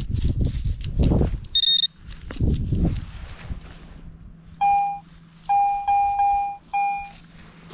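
Metal detector signalling targets: a short high beep about a second and a half in, then a run of lower beeps in the second half as the coil is swept back and forth. Rustling and scuffing of ground work come before the beeps.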